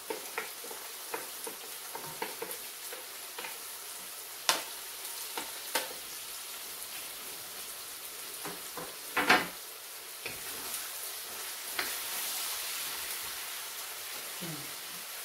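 Diced bell peppers, green beans, onion and hot dog pieces frying in a little oil in a wok: a steady sizzle, with a few sharp knocks of a wooden spatula against the pan, the loudest about nine seconds in.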